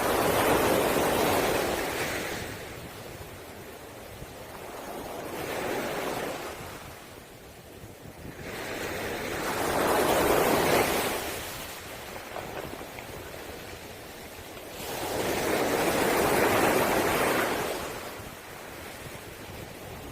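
Waves breaking on a pebble beach, each one rushing in with a hiss over the stones and then fading. Four surges come about five to six seconds apart; the second is weaker than the other three.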